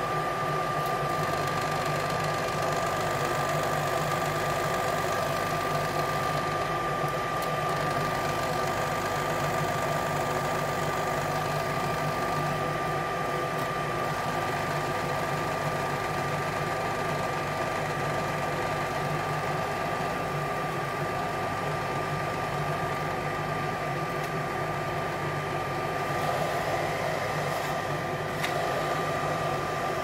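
Vintage General Electric HD-21 bonnet hair dryer running, its fan motor blowing air into the inflated plastic bonnet with a steady hum and a high whine.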